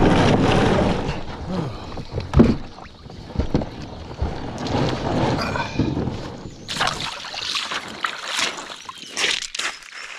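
A kayak's hull grinds up onto a gravel bar and comes to rest, with a loud knock a couple of seconds in and smaller knocks after it. Later come crunching footsteps on the gravel.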